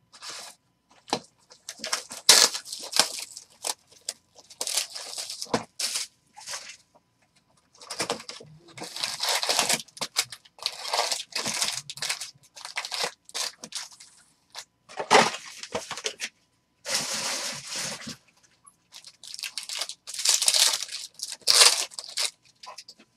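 Wrapping and packs of a box of 2020 Bowman Draft baseball cards being torn open and crinkled, in a run of irregular rips and crackles with short pauses.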